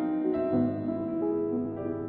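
Slow background piano music: held notes changing every half second or so.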